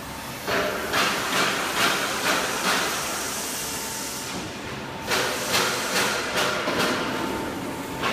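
Metal stud and track roll forming machine running: a steady mechanical hiss with sharp metallic clacks about twice a second, stopping for about two seconds in the middle and then starting again.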